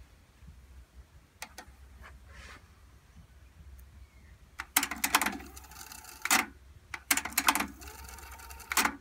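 Transport buttons and cassette mechanism of a Technics RS-TR373 double cassette deck clicking and clunking as they are pressed: a few faint clicks, then from about halfway several loud clunks. Between the clunks the tape whirs briefly as it winds.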